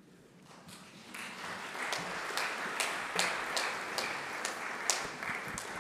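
Congregation applauding: the clapping swells over the first couple of seconds, holds steady with a few sharper individual claps standing out, and eases slightly near the end.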